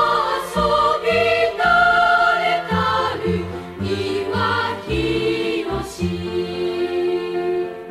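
Background music: a slow melody of held notes changing about once a second over low sustained chords.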